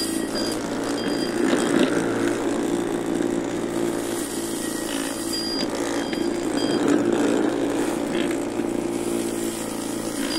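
Home-built electric lawn mower running, its 120 W 24 V e-scooter motor spinning a brushcutter blade with a steady hum while the hoverboard hub-motor wheels drive it over the grass. Short high whines come and go.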